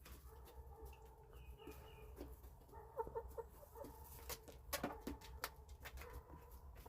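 Free-range chickens clucking softly, with a quick run of short clucks about three seconds in. A few sharp clicks come through in the second half.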